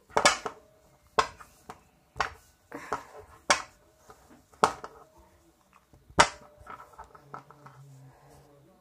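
Plastic action figures handled and knocked together close to the microphone: a string of sharp, irregular knocks and taps, the loudest just after the start and about six seconds in, with lighter clicks between.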